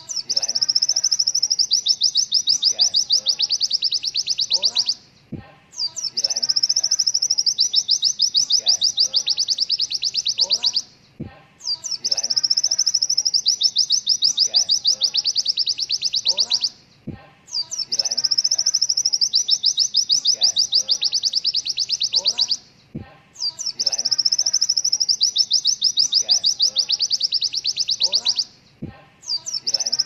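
White-eye (pleci) song, the 'killer' type: a long, fast, high-pitched rattling trill of about four and a half seconds, repeated about every six seconds in a loop with a short gap and a faint click at each restart.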